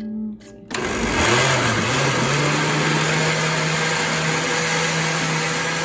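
Countertop blender with a glass jar switching on about a second in and running steadily, blending egg whites and cottage cheese into a smooth batter; its hum wobbles briefly as the motor comes up to speed, then holds steady.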